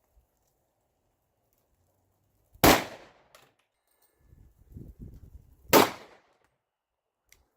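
Two shots from a compact 3.1-inch-barrel Smith & Wesson M&P Shield pistol in .40 S&W, about three seconds apart, each a sharp crack with a short echo. A low rumble comes before the second shot.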